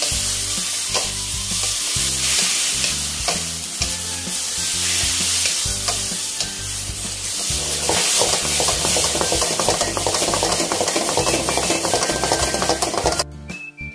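Cabbage and bacon sizzling in a hot wok, stir-fried with a wooden spatula that scrapes and knocks against the pan in quick repeated strokes. The sizzle cuts off abruptly near the end.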